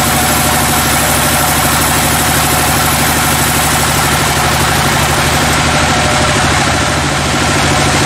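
Band sawmill running steadily as its vertical blade cuts through a slab of white teak (gmelina) log: an even machine drone under a hiss from the cut. The hiss eases a little after about five and a half seconds.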